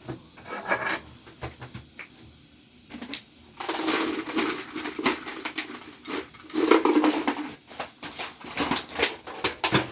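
Utensils clattering and scraping against pots and dishes. There are a few scattered clinks at first, then from about three and a half seconds in the handling turns busier, with scraping and rapid clinks.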